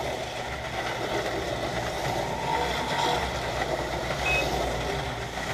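Auto World Thunderjet 500 HO-scale slot cars running around the track in a race, a steady whirring hum. A short electronic beep from the race timing system comes about four seconds in.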